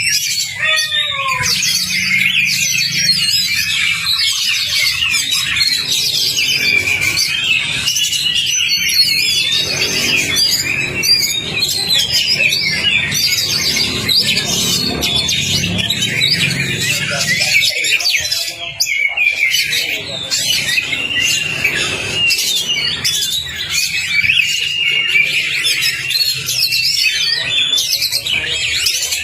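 Oriental magpie-robin (kacer) singing non-stop. Its song is a rapid, varied string of high whistles, trills and chatters, the full, aggressive song that keepers play to set other kacer singing. A low hum runs underneath.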